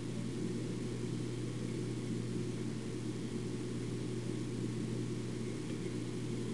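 Steady low hum with a faint hiss, unchanging throughout, with no clicks or other events.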